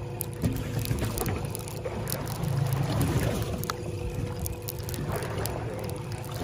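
Mercury outboard motor running steadily at low speed, a constant low hum, with water splashing against the boat's hull.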